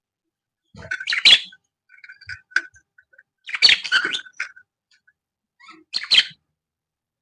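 Lovebirds chirping and screeching in short, high bursts, louder about a second in, around four seconds and near six seconds, with scattered small chirps between.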